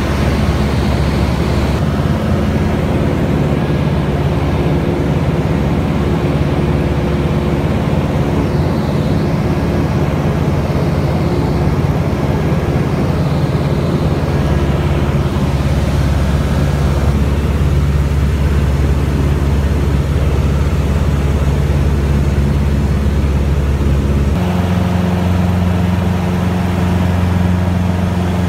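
Light aircraft's piston engine and propeller running with a steady drone, heard from inside the cabin in cruise. The drone shifts abruptly to a slightly different pitch about 24 seconds in.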